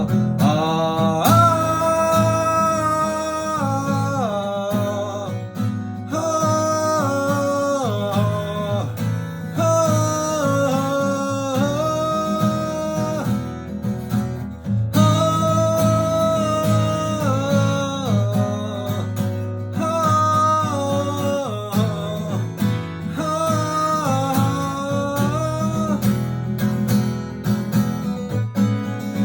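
Music: a strummed acoustic guitar under a wordless, sustained melody line that steps and glides in pitch, in an instrumental interlude of the song.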